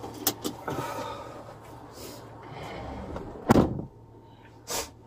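Rear door of a police car slammed shut about three and a half seconds in, a single heavy thud. Before it come light clicks and rustling; a short sharp click follows about a second after the slam.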